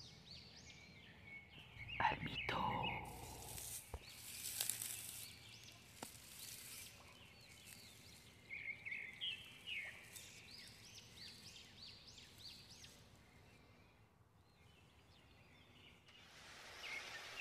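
Faint woodland birds chirping again and again in short, high, arching calls, with a louder call that sweeps downward about two seconds in and some rustling through the middle.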